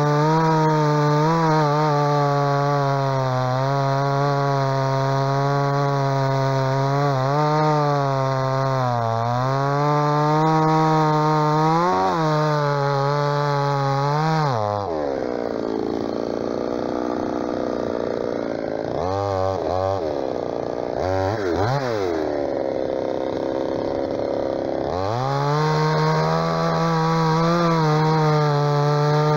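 45 cc two-stroke chainsaw (MTX 4540, full-chisel chain) cutting through a birch log at full throttle, its pitch dipping now and then under load. About halfway through it drops to idle and is revved briefly twice, then climbs back to full speed and cuts again.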